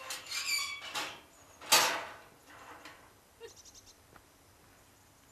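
Steel level-crossing gates being swung, their hinges squeaking several times, with one loud clank about two seconds in.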